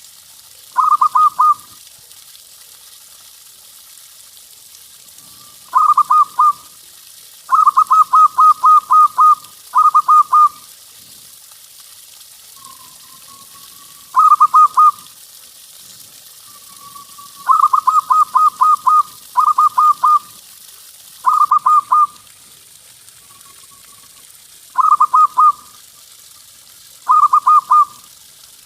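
Zebra dove (perkutut) singing: about ten phrases of rapid staccato cooing notes, each phrase one to two seconds long with short pauses between. A few soft drawn-out coos fall in the gaps.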